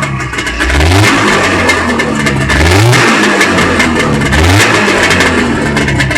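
1990 Polaris 440 Sport snowmobile's fan-cooled twin-cylinder two-stroke engine, fitted with an aftermarket AAEN performance exhaust, running loud and revved three times, its pitch climbing with each blip of the throttle.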